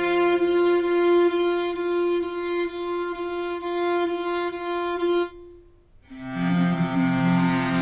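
Sampled bowed string instrument from the Chronicles Bukhu Kontakt library, holding a long bright note with a lower note under it at first. It stops about five seconds in, and after a short break lower notes begin.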